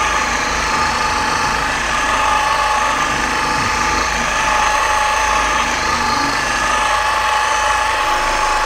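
Random orbital polisher running steadily at low speed with a worn foam cutting pad on a car's painted door panel, spreading cutting polish: an even motor whine that holds one pitch throughout.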